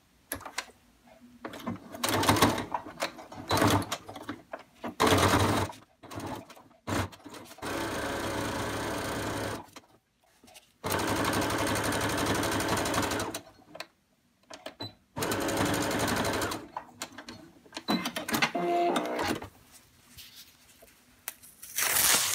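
Domestic electric sewing machine stitching a straight seam through thick terry towelling, starting and stopping several times in runs of a couple of seconds each, with fabric being shifted between runs.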